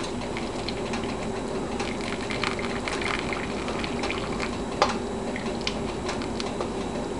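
Hot vinegar and sugar brine being poured from a pot into a packed glass canning jar, a steady liquid gurgle with a few light clicks, one sharper about five seconds in.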